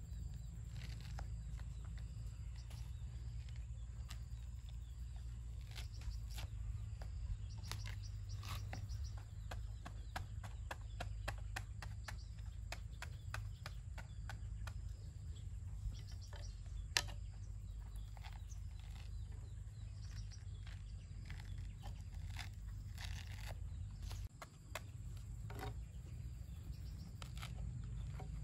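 Knife scoring and peeling the thick rind of a green citrus fruit: scattered small clicks, scrapes and tearing sounds, one sharper click about halfway through, over a steady low rumble. A thin high insect drone runs underneath.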